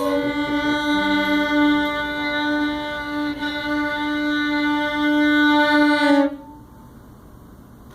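Fiddle bowing long held notes, often two strings at once, in imitation of railroad sounds. The playing stops about six seconds in.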